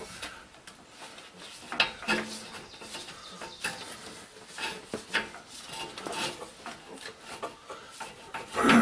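Metal transmission cooler lines being worked by hand under a truck, scraping, rubbing and clicking against the transmission and frame in scattered short taps. Near the end comes a louder creak that falls in pitch.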